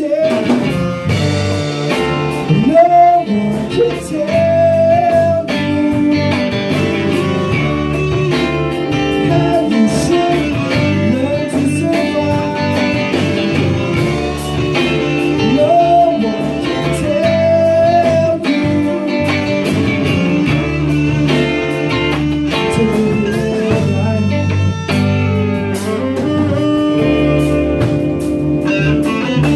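Blues-rock song: band music with guitar over a steady beat, and a lead melody of long held, bending notes.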